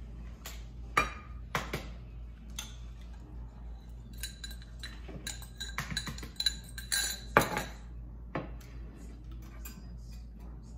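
Kitchen clatter of eggs being knocked against stainless steel mixing bowls and utensils clinking on the metal: scattered knocks and clinks, with two louder knocks about a second in and about seven and a half seconds in.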